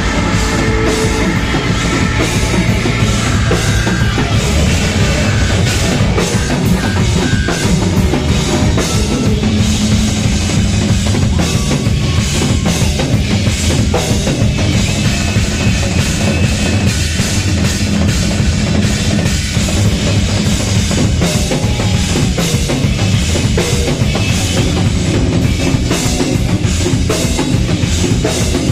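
Live rock band playing a loud instrumental passage, led by a drum kit with a driving bass drum and a low bass line.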